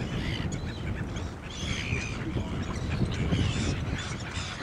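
Birds calling, a few short scattered calls over a steady low rumble.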